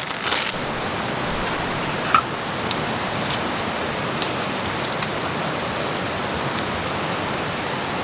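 Pork belly sizzling steadily on a hot camping griddle, with occasional sharp pops of spitting fat. A noodle packet crinkles as it is torn open at the very start.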